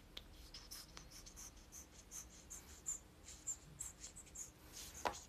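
Faint, irregular clicks and scratches close to the microphone, a few a second, with one sharper click about five seconds in: handling noise from the hand-held phone, fingers moving on it.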